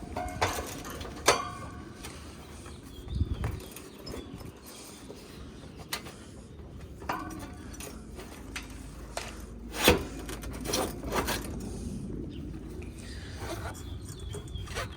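Handling noise from working an outdoor condenser fan motor's three wires through a small flexible conduit whip: scattered clicks, rustles and knocks, the sharpest about a second in and near ten seconds, with a low thump a little after three seconds.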